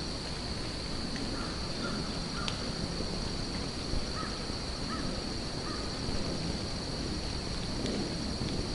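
Distant American crows cawing: a few short caws about a second in and another bunch around five seconds in, over a steady outdoor noise.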